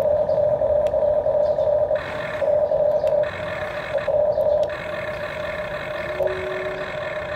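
Electric gear motors of a Huina RC toy excavator whining steadily as its boom and arm move. A second, higher whine cuts in about two seconds in, drops out briefly, and comes back for the rest of the time.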